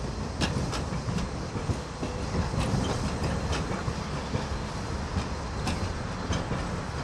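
Articulated low-floor Variotram tram running slowly past, a low rumble with its wheels clacking sharply and irregularly over rail joints and points.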